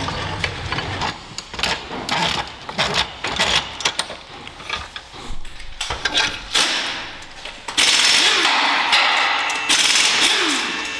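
Sharp clicks and knocks of metal parts being handled on a brake caliper held in a vise. From about eight seconds in, a loud steady hiss of compressed air from a blow gun feeding the caliper bore, broken by short gaps.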